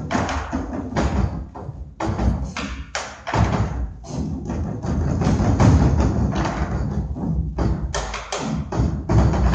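Ensemble of barrel drums played live with sticks: a dense rhythmic run of deep drum hits mixed with sharper clicking strokes. It grows louder about halfway through.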